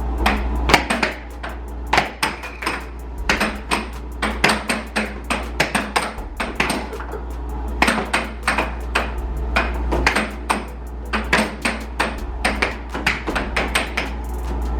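An air hockey rally: a plastic puck clacking sharply off the players' mallets and the table's rails, several hard hits a second in an uneven rhythm.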